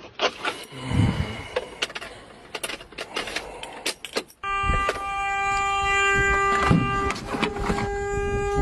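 Clicks and rattles of handling at a car's steering column. About four seconds in, a steady, continuous car-horn tone starts abruptly and keeps sounding.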